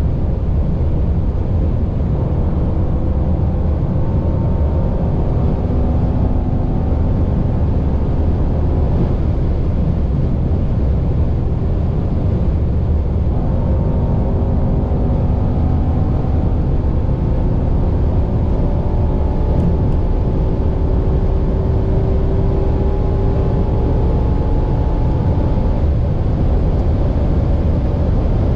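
In-cabin sound of a 2022 Mercedes-AMG E63 S's twin-turbo V8 pulling hard at very high speed (about 240 to 300 km/h) under heavy wind and tyre roar. The engine note climbs slowly and is broken by one upshift from sixth to seventh gear in the second half.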